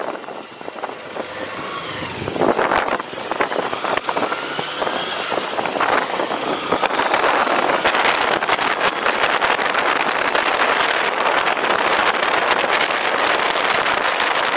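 Motorcycle pulling away from a stop, its engine pitch rising in two sweeps over the first several seconds. Then a steady rush of wind noise over the microphone grows louder as the bike gets up to speed.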